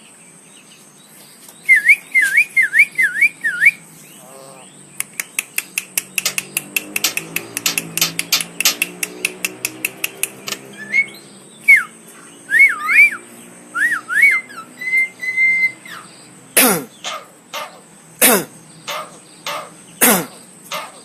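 Javan myna whistling short warbled phrases, then a fast run of clicks lasting several seconds, more warbling whistles, and three loud, sharp downward-sweeping calls near the end.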